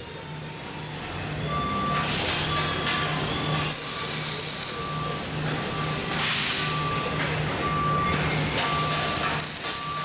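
A vehicle's reversing alarm beeping steadily, a little more than once a second, starting about a second and a half in. Short bursts of crackle from a wire-feed welding arc come and go.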